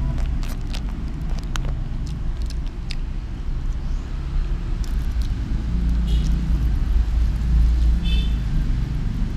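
Steady low rumble of road traffic, swelling slightly later on. A plastic bag crinkles a few times in the first three seconds, and there are two brief high chirps about six and eight seconds in.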